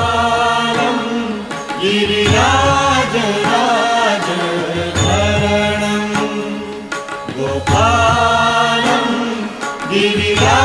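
Background music: a sung devotional chant over a steady low drone, with the same sung phrase coming round again near the end.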